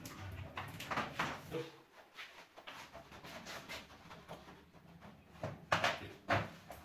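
PVC wall panel being handled and pressed into place against the wall: plastic rubbing and knocking, with two sharper knocks about half a second apart near the end.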